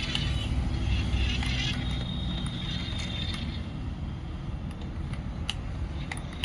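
Toy remote-control cement mixer truck driving across a foam mat: its small electric motor and gears whir over a low rumble. A thin, steady high whine comes in for a couple of seconds in the middle.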